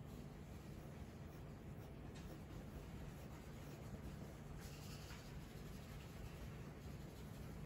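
Faint scratching of a pencil stroking across toned drawing paper, over a low steady room hum.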